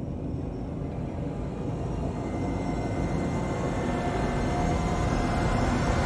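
Cinematic riser sound effect for a logo animation: a low rumble that slowly swells in loudness, with faint steady high tones creeping in partway through.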